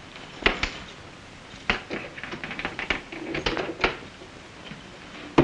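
Irregular light clicks and knocks of a travelling trunk being opened and its contents handled.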